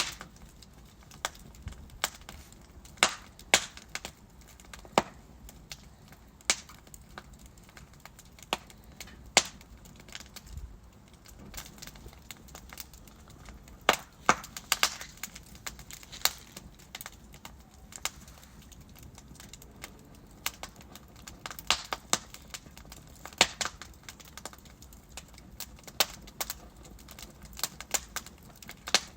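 Wood fire crackling as logs burn, with irregular sharp pops and snaps over a low steady hiss.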